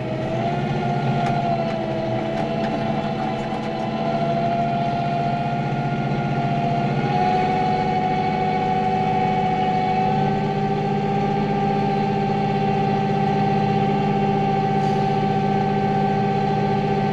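Farm tractor running while driving through snow, its engine steady with a high whine over it; the pitch steps up slightly about seven seconds in.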